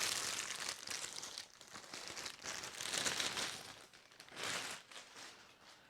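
Packaging of a new camera tripod being handled and unwrapped by hand, in several rustling stretches with short pauses between them.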